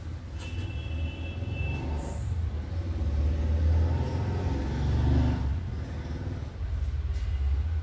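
Steady low rumble of road traffic, with a short high steady tone, like a vehicle horn, about half a second in.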